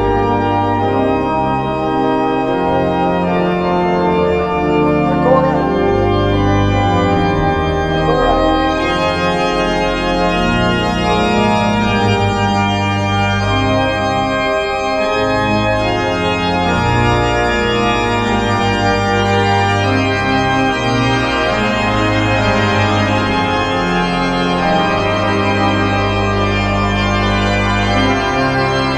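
Pipe organ playing a continuous passage of held chords over sustained low bass notes.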